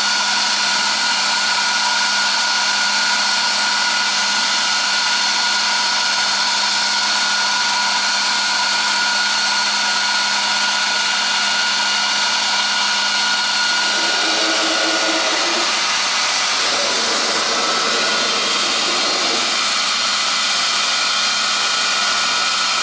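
CNC router spindle running at speed while trimming a thermoformed plastic part: a steady high-pitched whine over hiss. A fainter, lower sound comes and goes about two-thirds of the way through.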